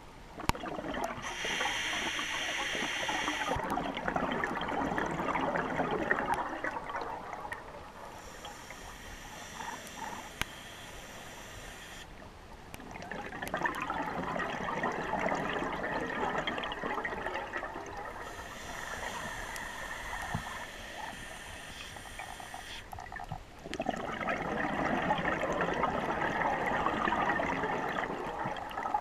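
Scuba diver breathing through a regulator underwater: three long stretches of bubbling exhalation, with quieter hissing inhalations between them.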